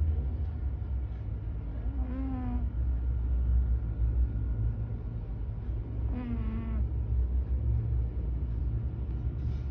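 A sleeping cat snoring: two short, nasal, pitched snores about four seconds apart, each slightly falling in pitch, over a steady low rumble.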